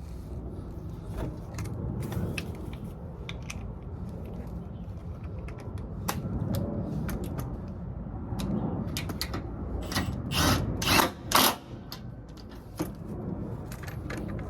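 Hand tools working on leaf spring brackets and bolts: scattered metal clicks and clinks, with a quick run of three or four louder rasps about ten seconds in, like a ratchet wrench.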